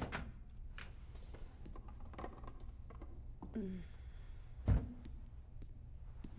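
Side-by-side refrigerator door being handled: light clicks and knocks, a short falling squeak about three and a half seconds in, then a dull thud near the five-second mark as the door shuts, over a low steady hum.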